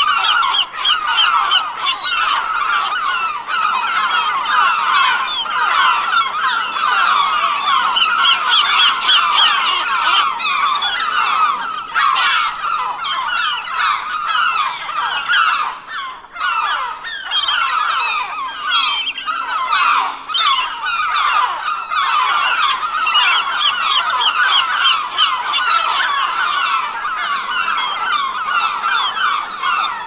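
A large flock of seagulls calling, many short overlapping cries and squawks at once, with a brief lull about halfway through.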